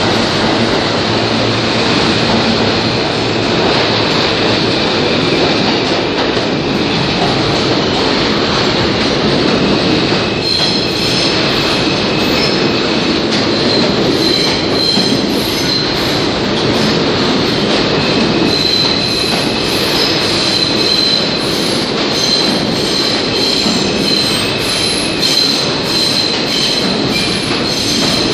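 Subway train running on the rails, a loud steady rumble of wheels and cars. From about ten seconds in, high-pitched wheel squeal rides over the rumble and comes and goes.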